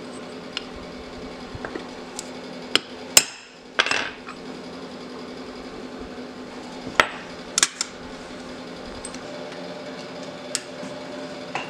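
Steel parts and hand tools clinking and knocking against a steel plate on a workbench: scattered sharp metal knocks, the loudest about three seconds in, with a short clatter around four seconds. A steady hum underneath.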